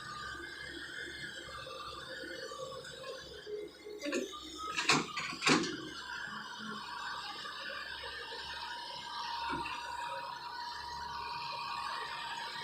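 Heavy earthmoving machinery running steadily, with a few sharp metallic clanks about four to five and a half seconds in, the two loudest close together.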